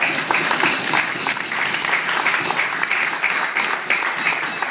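A roomful of people applauding: many hands clapping at once, dense and steady.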